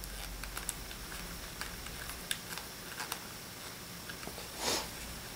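Faint handling noise of the clamp and camera mount being worked by hand: scattered small clicks and light rubbing, with a short soft rush of noise near the end.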